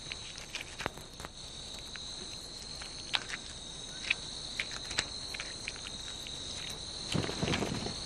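A chorus of night insects making a steady, high-pitched trill, with scattered sharp clicks and a brief rustle near the end.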